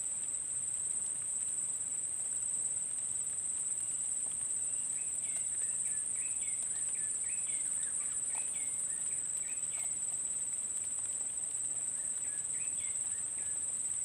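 Insects droning steadily at one high pitch, with a bird calling in quick chirping phrases from about five seconds in and again briefly near the end.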